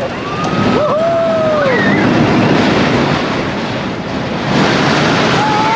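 Small steel roller coaster train rumbling and clattering along its track as it passes close by. Long high squeals rise and fall over the noise about a second in and again near the end.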